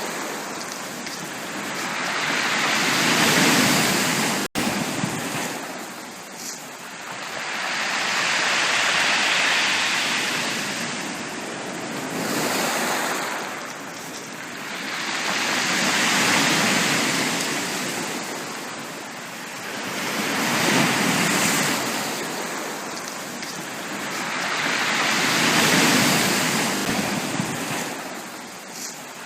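Sea waves washing onto a beach, surging and receding in slow swells about every five to six seconds. A split-second dropout in the sound comes about four and a half seconds in.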